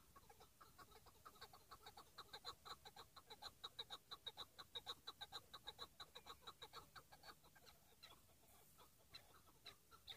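Chukar partridge calling, faint: a rapid run of short repeated calls that builds up over the first couple of seconds and tails off after about seven seconds, with a few scattered notes near the end.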